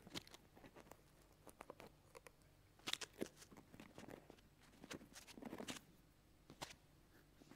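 Near silence broken by faint rustles and small scattered clicks: handling noise from hands fiddling with glasses at the face.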